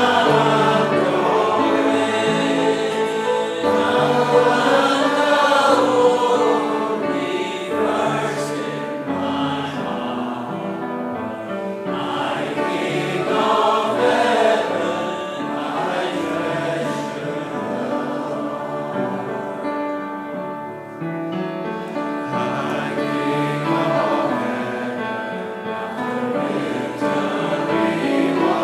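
Congregation singing a hymn together in slow, held notes.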